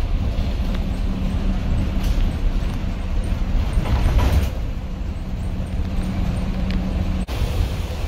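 GM 427 big-block V8 of a 1979 GMC 6000 school bus running steadily under way, heard from inside the cab. About halfway through, the engine note breaks and surges as the manual Clark transmission is shifted.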